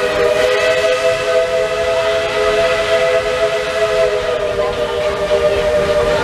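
Steam locomotive's chime whistle blowing one long, steady blast of about six seconds, several notes sounding together as a chord, over a hiss of steam.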